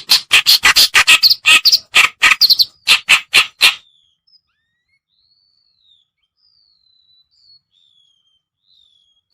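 Kerakbasi reed warbler lure-call recording: a loud, harsh, rapid chattering song of about five notes a second that breaks off about four seconds in, leaving only faint thin whistled notes.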